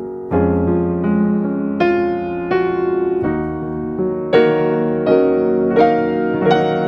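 Background piano music, a slow melody of single struck notes and chords about every half to three-quarters of a second.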